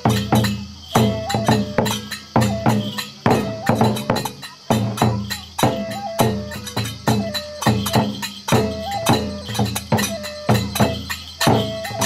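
Kagura ensemble playing: a large barrel drum (taiko) struck in a quick, uneven rhythm with small hand cymbals clashing and jingling, over a held high melodic tone that briefly steps up in pitch from time to time.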